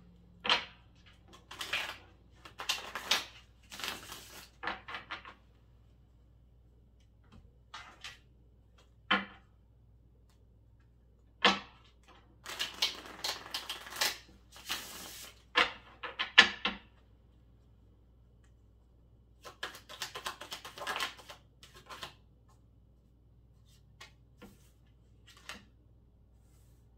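A deck of tarot cards being shuffled by hand, in bursts of quick fluttering card clicks with sharp knocks as the deck is tapped and squared on the wooden table. A few cards are laid down with light clicks near the end.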